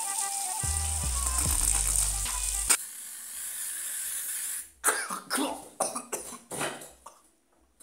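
Background music over a kitchen tap running, cut off suddenly; then an aerosol deodorant can hisses into an open mouth for about two seconds, followed by a string of loud, irregular coughs and gagging.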